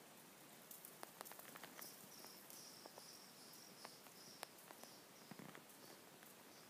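Near silence: faint scattered clicks, with a faint high chirp repeating about three times a second through the middle.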